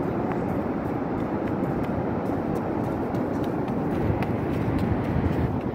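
Steady low rumble of wind buffeting the phone's microphone on an open beach.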